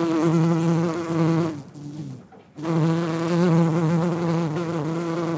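Bumblebee buzzing in flight: a low, steady drone with a rich stack of overtones, in two long stretches broken by a short gap about two seconds in.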